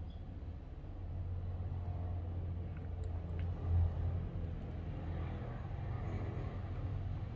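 A low, steady rumble that swells briefly a little under four seconds in, with a few faint clicks.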